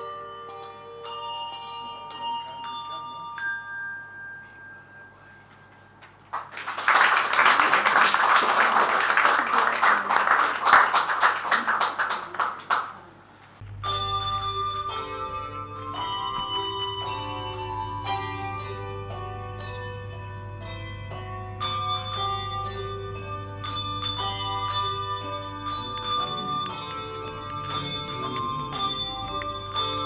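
Handbells ringing the last notes of a tune, which fade away. The audience then applauds for about seven seconds. After a sudden cut the handbell choir starts another tune, many bells struck in quick succession with their notes overlapping.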